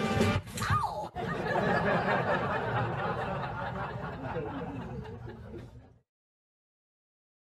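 People chuckling and laughing over busy room noise, which cuts off to dead silence about six seconds in.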